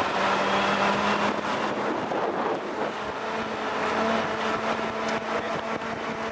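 1948 Willys Jeep's four-cylinder flathead engine running steadily while driving on a gravel trail, mixed with tyre and wind noise. Its pitch edges up a little past the middle.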